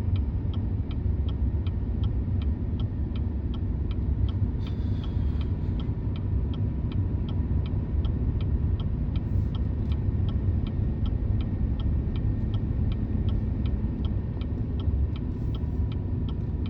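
Cab interior of a Chevy 3500 dually pickup towing a heavy fifth-wheel trailer: steady low engine and tyre rumble on a wet, slushy road. A light, even ticking runs through it at about two and a half ticks a second.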